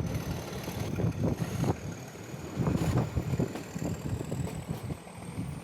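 Nilgiri Mountain Railway toy train running on the diesel-hauled section, heard from on board: a low rumble with irregular clattering and knocking of wheels over the track. A faint high whine rises slowly in pitch underneath.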